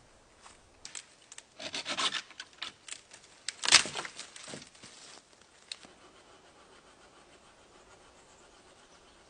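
Wood scraping and rubbing in a run of irregular strokes, loudest about four seconds in, then it stops and only a faint background remains.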